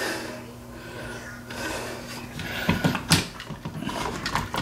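Handling noise of electrical wires and plastic wire nuts being stuffed into a plastic wall switch box behind a dimmer switch: rustling and scraping, with a few sharp plastic clicks about three seconds in, over a faint steady hum.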